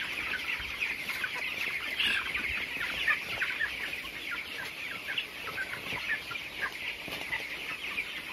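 A flock of 22-day-old broiler chickens calling all together: a dense, continuous chorus of short, high peeps and chirps.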